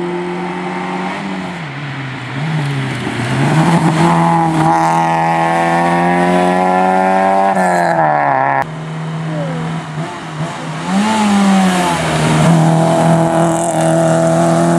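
Rally car engines at full throttle, revving up and dropping back through gear changes as the cars approach. The sound breaks off abruptly about eight and a half seconds in, and another car's engine then climbs again as it comes past.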